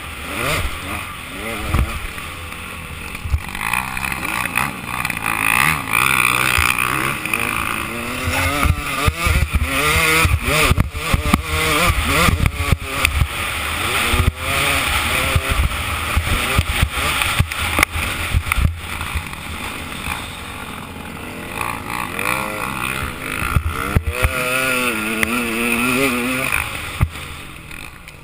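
Motocross dirt bike engine heard onboard, revving up and dropping again and again as the rider shifts and throttles around the track, with sharp knocks as the bike hits bumps.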